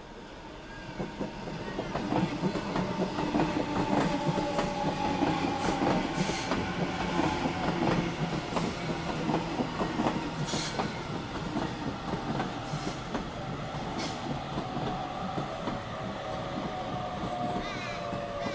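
A Sydney Trains Waratah (A set) double-deck electric train running close past, with wheels clicking over the rail joints and a whine that falls slowly in pitch as it slows on the approach to the platform.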